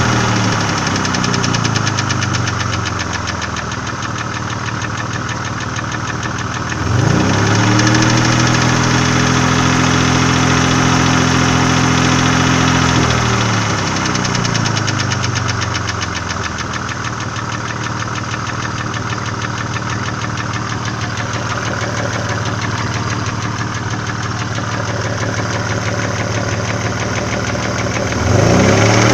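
Nissan VG30E V6 engine running with a rapid, dense tapping from the valvetrain, which the owner puts down to knocking hydraulic lifters and valve cam lobes. The revs settle toward idle at first, jump up about seven seconds in and hold, fall back to a steady idle around fourteen seconds, then rise sharply again just before the end.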